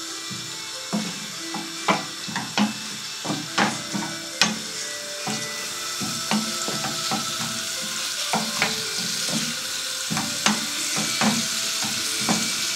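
Chicken pieces and onion slices frying in oil in a non-stick pan, sizzling steadily, while a wooden spatula stirs them, knocking and scraping against the pan. The knocks come thickest in the first half, and the sizzle grows a little stronger later.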